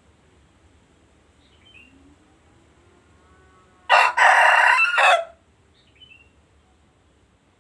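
Rooster crowing once, a loud, harsh call lasting about a second and a half, starting about four seconds in.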